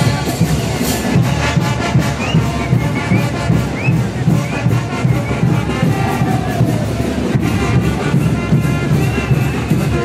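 Brass band playing dance music with a steady drumbeat for a street parade dance.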